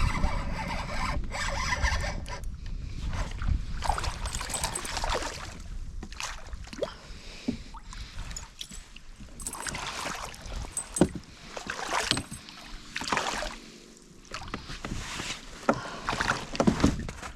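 Water splashing and sloshing against a kayak, with scattered knocks, clicks and rubs from handling gear in the boat, as a hooked smallmouth bass is played and landed.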